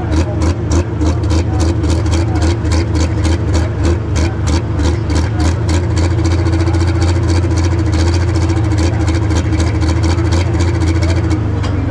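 Heavy diesel engine of a Pro Stock pulling tractor running steadily, with a regular beat of about four clicks a second over it.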